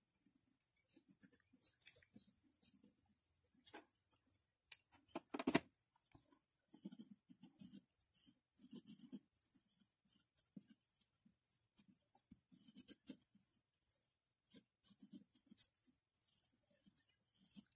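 Faint pencil strokes scratching on paper, short strokes in quick irregular runs as lines and shading are drawn. One louder sharp knock comes about five and a half seconds in.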